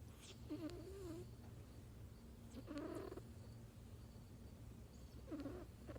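Sleeping kitten snoring faintly: three rasping breaths with a wavering pitch, about two and a half seconds apart.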